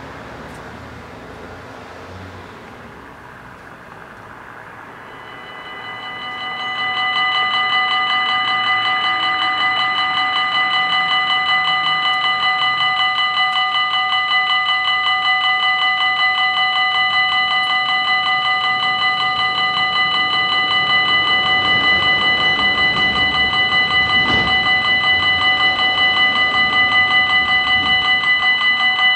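Level crossing warning bells start ringing about five seconds in, swell over a couple of seconds, then keep up a loud, rapid, even ringing. This is the warning for an approaching train, and the barriers come down near the end. Before the bells start there is only low road traffic noise.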